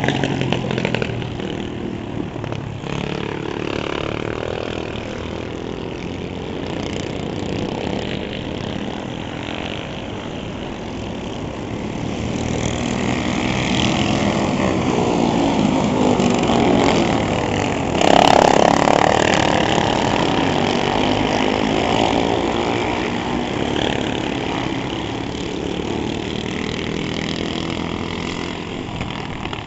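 Honda GX-series single-cylinder four-stroke kart engines running hard on a circuit. Their pitch rises and falls as the karts accelerate, lift and go past, and the loudest pass comes about two-thirds of the way through.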